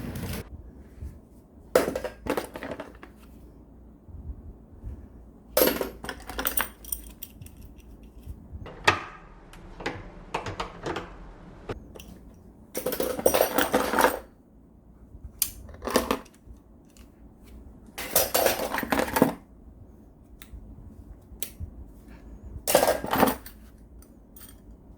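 Small hand tools clinking and clattering as they are picked up, handled and set down: sharp separate knocks every few seconds, with two longer rattling spells, one about halfway through and one about three-quarters through.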